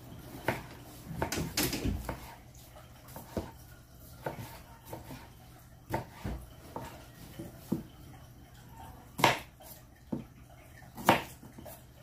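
Kitchen knife slicing a tomato and an onion on a plastic cutting board: irregular taps of the blade against the board, with two louder knocks in the last few seconds.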